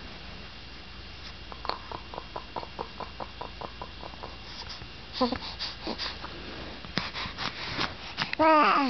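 Newborn baby with hiccups: a run of soft rapid clicks, about four a second, then a brief squeak past halfway and a louder short squawk near the end, the voiced sound of a hiccup.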